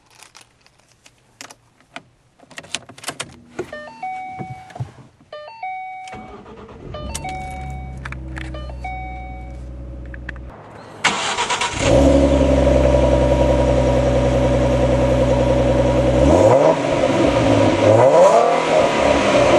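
Small clicks and a few repeated dashboard chimes, then the 2012 Ford Mustang's 3.7-litre V6 cranks and catches about eleven seconds in and settles into a steady idle. Near the end it is revved up and down twice.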